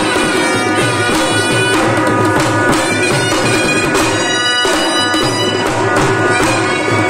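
Two shehnai (sanadi) playing a reedy melody together, with held notes, over a double-headed barrel drum beaten with a stick in a steady rhythm.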